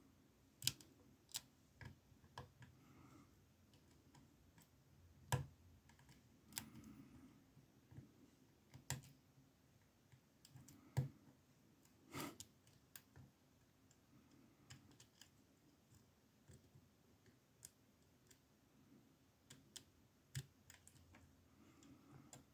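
Faint, irregular clicks and ticks of a lock pick and tension wrench working the pins in the keyway of a small 20 mm Amtech padlock.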